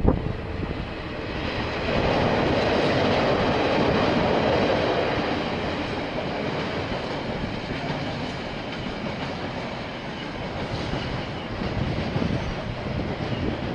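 A KiwiRail train rolling past, its steel wheels running on the rails, loudest about two to five seconds in and then easing slightly.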